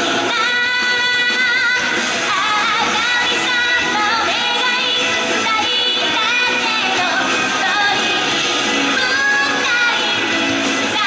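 A young woman singing a pop song into a handheld microphone over instrumental accompaniment, amplified through the stage sound system.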